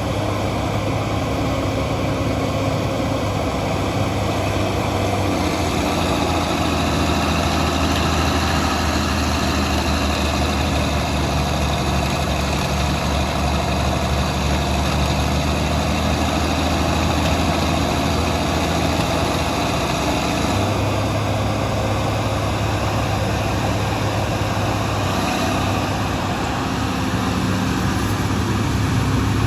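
Bulldozer diesel engines running steadily, with the engine note shifting about five seconds in and again about twenty seconds in.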